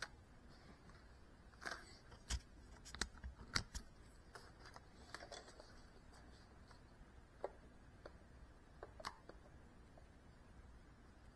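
Quiet room tone with a scatter of faint, short clicks and taps, bunched in the first half and thinning out after.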